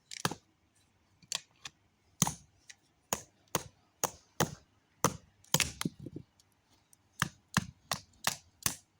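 A run of about twenty sharp knocks and taps of hard objects, coming irregularly, some in quick pairs.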